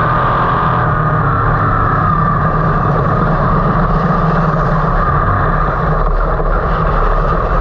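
305 sprint car's V8 engine running steadily on the dirt track, heard loud from the onboard camera in the cockpit.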